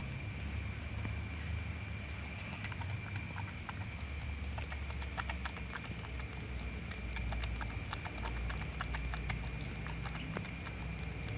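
Baby monkey suckling milk from a feeding bottle: a run of quick, irregular wet clicks and smacks of its mouth on the rubber teat. A short high trill sounds twice in the background.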